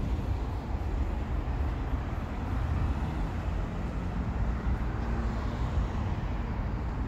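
Steady low rumble of outdoor urban ambience, with road traffic in the distance.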